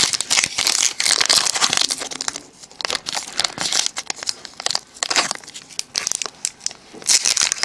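Foil wrapper of a Pokémon trading card booster pack being torn open by hand: irregular crinkling and tearing, in several bursts with a short lull.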